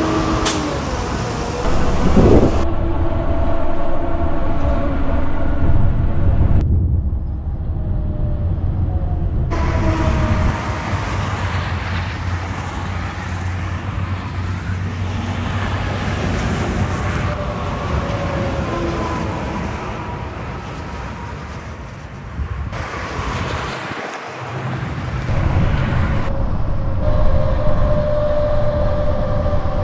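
Highway traffic noise from alongside heavy multi-axle trucks: steady tire noise on concrete with engine rumble and a humming tire whine. The sound changes abruptly several times as one clip cuts to the next.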